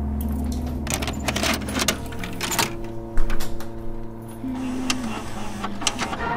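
An irregular run of sharp clicks and clatter, with one louder knock about three seconds in, over a low held drone of steady tones.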